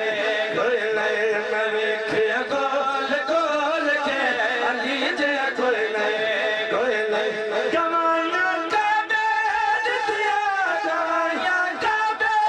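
Men singing a devotional kalam in praise of the Prophet through microphones and a loudspeaker system, with long, wavering held notes.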